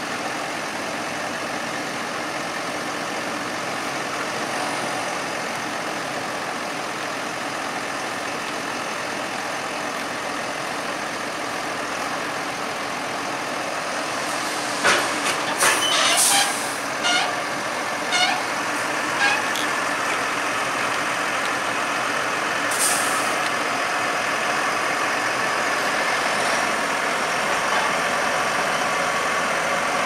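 Case IH tractor's diesel engine running steadily while the hydraulic ram of its tipping trailer raises the body to unload maize silage. A run of sharp clicks and knocks comes about halfway through, and a short hiss a few seconds later.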